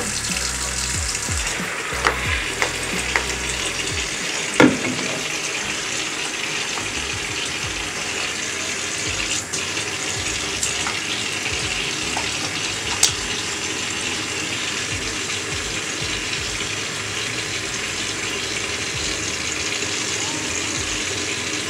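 Bathroom sink faucet running steadily into the basin while hands splash water for face washing, with a few light knocks; the sharpest comes about four and a half seconds in.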